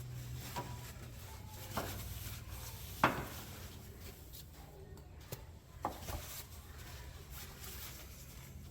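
Scattered light clicks and knocks of parts and hand tools being handled on a CV axle, about four of them, the loudest about three seconds in, over a low steady hum.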